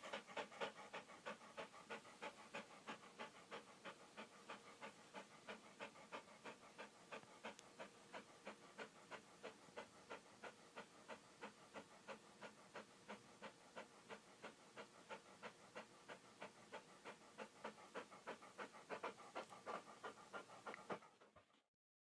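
Dog panting rapidly and steadily, about four breaths a second, fading out near the end.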